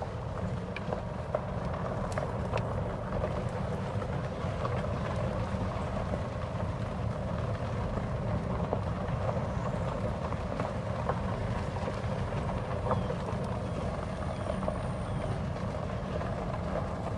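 A small vehicle driving along at a steady pace, with a constant low rumble and scattered light rattles.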